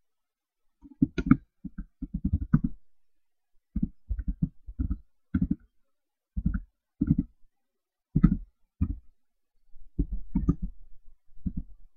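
Computer keyboard keys being typed, short clicking strokes in irregular runs of two to five with pauses between, as a line of text is entered.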